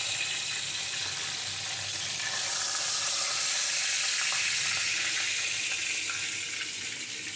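Hot oil sizzling steadily around hilsa fish head pieces deep-frying in a kadai; the sizzle eases a little near the end as the pieces are lifted out.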